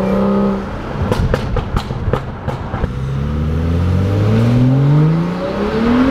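BMW 335i's turbocharged straight-six with a burble tune, heard from inside the cabin: it holds steady revs, then comes off the throttle about half a second in and the exhaust pops and crackles for about two seconds on the overrun, then the engine note rises steadily as it accelerates, dropping again near the end.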